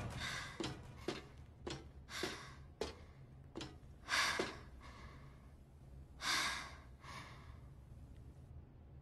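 A person breathing: about four audible breaths a couple of seconds apart, with soft clicks in between, over a faint low hum.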